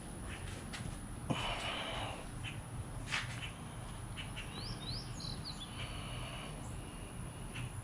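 A caulking gun clicks a few times, with a short hiss about a second in as silicone is squeezed from a nearly empty tube. A bird chirps a few quick times midway, over a low steady hum.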